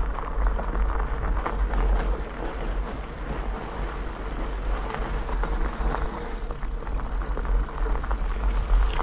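Bicycle riding over a gravel driveway: tyres crunching on loose gravel, with a constant low rumble on the camera's microphone.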